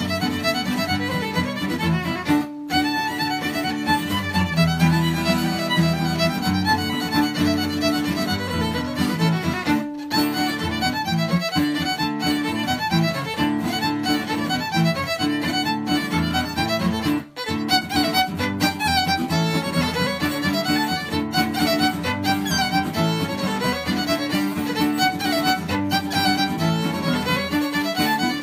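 Acoustic fiddle playing a fast Celtic-style reel, with acoustic guitar chords underneath.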